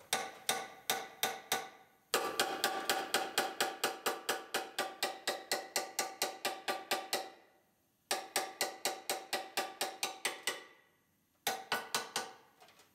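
Hammer blows on a bent metal bracket: quick, evenly paced strikes about four a second, each ringing, in four runs with short pauses, the longest holding about twenty blows.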